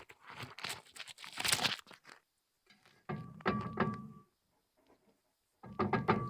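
Metal knocking and scraping as a stuck wheel lug stud is worked loose from the hub with a claw hammer. A rapid clatter comes first, then two short clanks with a brief ring, about three seconds and about six seconds in.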